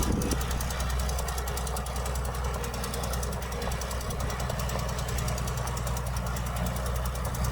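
Heavy diesel earthmoving engine running with a rapid, even clatter. It eases off just after the start, then runs steadily.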